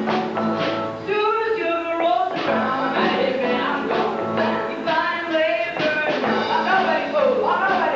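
Live rock and roll band playing with a singer, drums keeping a steady beat.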